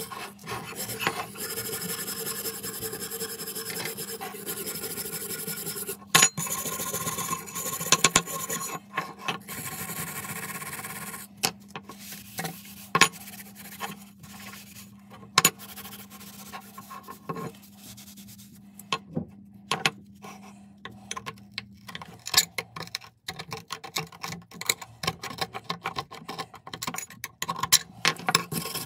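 Abrasive rubbing and scraping on the rusty steel of an old adjustable wrench during rust removal, broken by sharp metallic clicks and knocks as parts are handled. A low steady hum runs under it and stops about three quarters of the way through.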